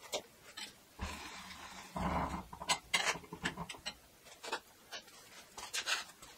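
Metal clicks and clanks from the steel end frame and height-adjustment chain of a homemade swingblade sawmill as the cut depth is set. A rough rasping rattle starts about a second in and lasts about three seconds, and it is loudest in the middle.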